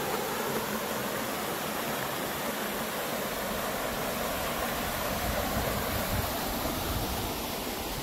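Shallow stream running over rocks: a steady rush of flowing water. A low rumble comes in for a couple of seconds past the middle.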